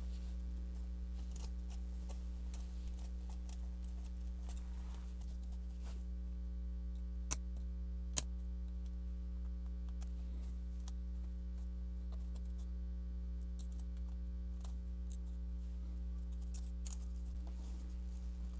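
Steady low electrical hum with faint scattered clicks and ticks of fingers working a small laptop ribbon-cable connector, two sharper clicks a little under a second apart about seven and eight seconds in.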